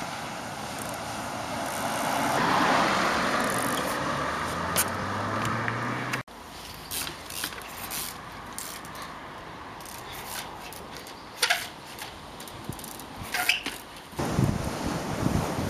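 A car passing on the street, swelling and then fading over the first few seconds. After a cut come scattered sharp clicks and knocks as a trials bike hops along a log, and near the end wind buffets the microphone.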